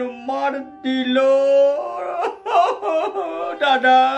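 A man wailing and crying loudly in drawn-out, exaggerated sobbing cries, over background music with steady held tones.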